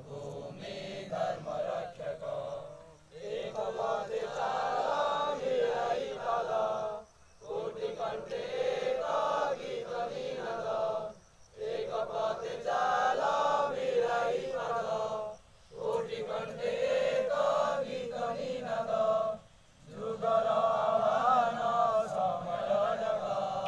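A group of men singing a Sangh geet, an RSS group song, together in phrases of about four seconds with a short breath break between each.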